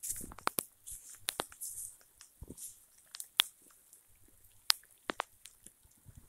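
Bare feet walking over wet gravel and sandy ground, an irregular run of crunching and squelching steps with a few sharp clicks from stones.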